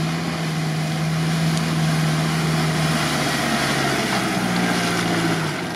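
Toyota Land Cruiser 70-series engine pulling steadily through mud at a constant pitch. It rises slightly about four and a half seconds in, then eases off near the end.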